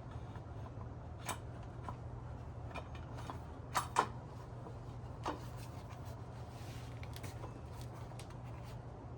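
Small metal hardware being handled, likely washers: a few scattered sharp clicks and taps, the loudest pair about four seconds in, over a steady low hum.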